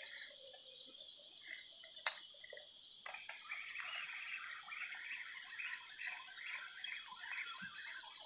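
Steady high-pitched drone of rainforest insects, with a single sharp click about two seconds in; from about three seconds a spinning fishing reel is cranked, a rough fast ticking whir that lasts to the end.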